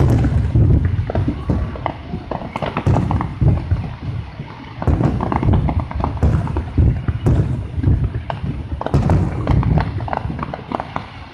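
Fireworks going off in quick succession: dense rapid crackling pops over heavy low booms, in waves that ease briefly twice.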